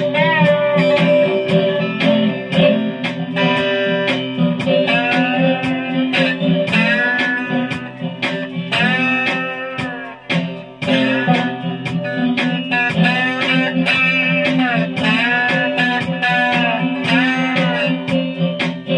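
Guitar played with a slide: melody notes glide up and down over steady repeated bass notes, driven by a regular picked rhythm. The playing drops back briefly about halfway through.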